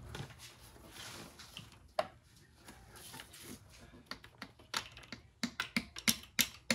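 Light taps of a small mallet seating the rebuilt camshaft oiler tube into its retainers on a Mercedes M117 V8's cylinder head. A single tap comes about two seconds in, then a run of quick taps, two or three a second, in the last few seconds.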